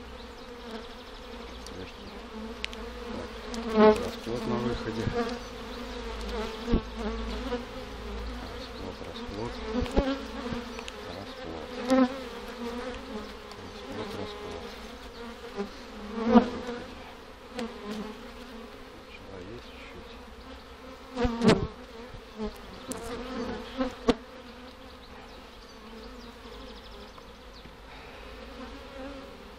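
Honey bees of an opened hive buzzing in a steady hum, with occasional wooden knocks and scrapes as hive frames are lifted out and handled; the sharpest knocks come about a third and two-thirds of the way through.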